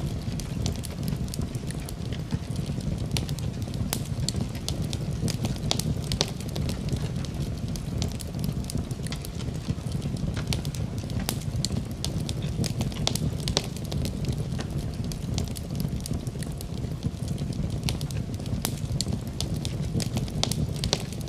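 Wood fire in a fireplace crackling: a steady low rumble of flames with many small, irregular sharp pops and snaps.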